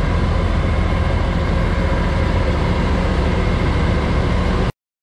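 Peterbilt semi truck's diesel engine idling steadily with a deep, even rumble. The sound cuts off abruptly near the end.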